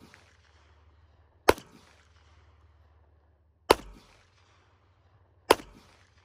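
CZ Shadow 2 9mm pistol fired three times, about two seconds apart, each sharp report trailing off in a fading echo over about a second; the echo of a shot fired just before is dying away at the very start.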